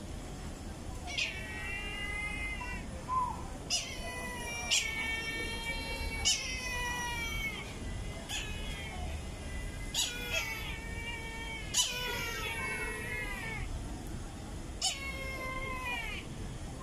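A Brahminy kite calling. It gives about eight drawn-out, quavering wails, each starting sharply and then falling slightly in pitch, at irregular gaps of one to three seconds.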